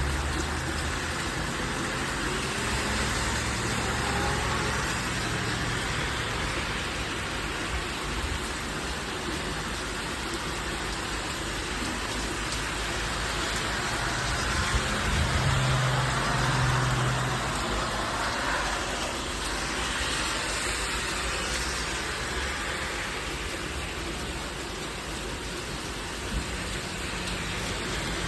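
Steady heavy rain pouring down in a thunderstorm, with a low rumble that swells around the middle.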